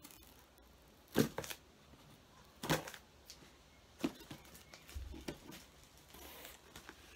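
Scissors cutting packing tape on a cardboard box: four sharp snips roughly a second and a half apart, with faint rustling of the box and its plastic wrapping between them.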